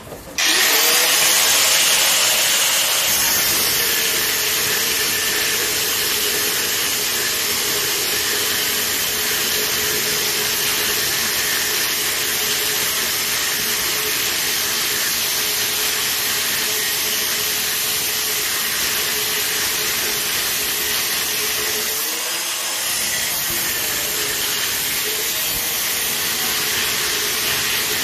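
Angle grinder spinning up and cutting metal: a steady whine over a loud grinding hiss, the motor's pitch sagging briefly and recovering about three-quarters of the way through as the load changes.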